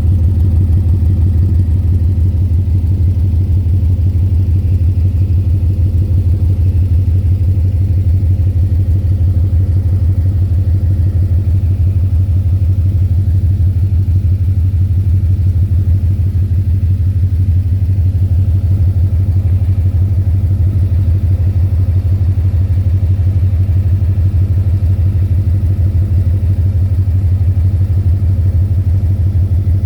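2010 Ford Mustang GT's 4.6-litre V8 running steadily at idle with a rapid, even knock, which the owner asks about as possible rod knock, lifter tick or a loose torque converter.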